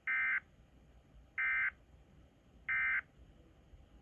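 Emergency Alert System end-of-message signal: three short bursts of screechy SAME digital data tones, about a third of a second each and evenly spaced, marking the end of the alert.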